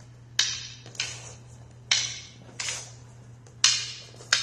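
Wooden fighting sticks clacking together in a strike-and-block partner drill: six sharp hits, roughly one a second, each with a short ring.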